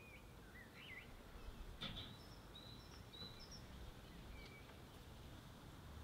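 Faint wild songbirds calling: a few quick rising chirps in the first second, then a run of thin, high whistled notes a couple of seconds in and one more short note later. A single short click about two seconds in.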